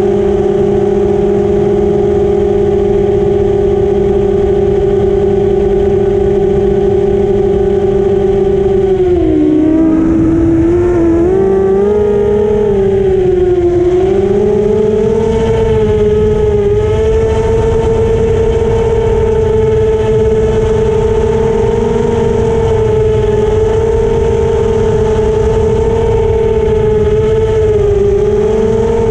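FPV racing quadcopter's brushless motors (Racestar 2205 2300 kV) and propellers whining steadily, heard from the drone's own camera with a rush of air underneath. About nine seconds in, the pitch dips and wavers for several seconds as the throttle changes, then holds steady at a slightly higher pitch.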